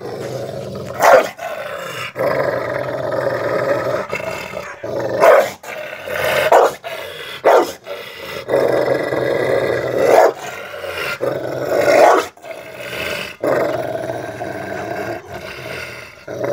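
Rottweiler growling and snarling in a sustained aggressive threat, broken by several short, loud barks.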